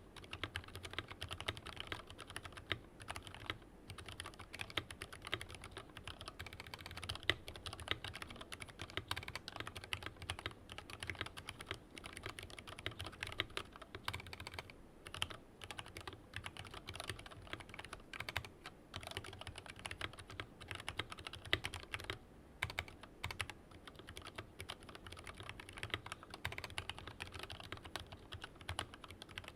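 Continuous fast typing on a Tokyo60 V3 mechanical keyboard with aluminium case and stock keycaps, fitted with lubed and filmed full-nylon JWK Lavender linear switches: a dense run of key clacks with brief pauses.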